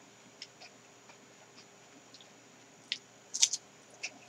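Eating sounds from a Glico Giant Corn cookies-and-cream ice cream cone: a few faint mouth clicks, then a short cluster of sharp, crisp crunches about three and a half seconds in as the cone is bitten and chewed.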